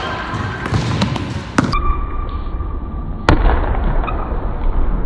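Pickup basketball game on a gym floor: the ball thumps sharply twice, about a second and a half in and again past three seconds, over the steady noise of play.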